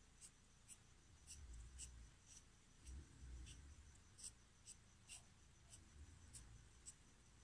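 Felt-tip marker drawn across skin: a string of short, faint scratchy strokes, about two a second.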